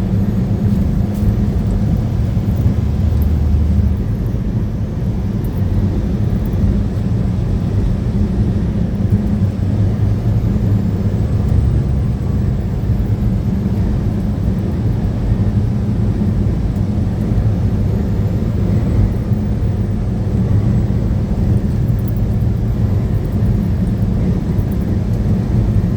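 Steady low drone of a truck driving: engine and road noise heard from inside the cab, with no letup or change.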